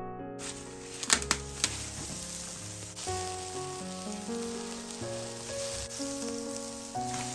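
Steady hiss of a wood-fired stove and a large wok of water at a hard boil as dumplings go in, with a few sharp pops about a second in. Soft background music of single held notes plays throughout.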